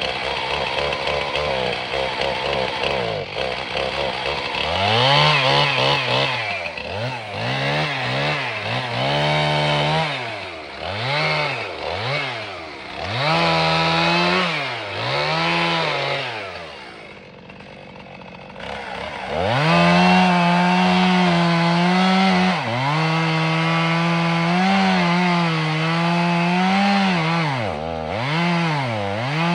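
Two-stroke chainsaw blipped up and down in quick repeated revs, falling back briefly about two-thirds of the way through. It then runs held at high revs, dipping now and then, as it cuts into a tree.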